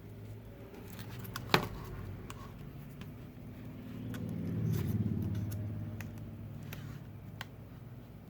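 Clicks and faint ticks of a thin metal pry tool working around the edge of a cracked iPad glass screen, one sharp click about a second and a half in. A low rumble swells and fades in the middle.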